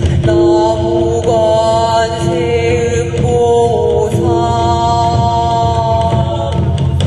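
Group chanting in long held notes that shift in pitch, over a dense, steady low drumming with a few sharper strikes.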